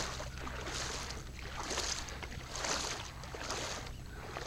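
Water splashing in a steady rhythm, about one splash a second, over a low steady hum.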